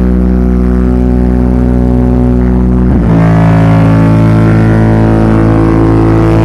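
Subwoofer sound system putting out a loud, sustained low drone with many overtones, shifting to a different pitch about three seconds in: the noise behind a subwoofer noise problem.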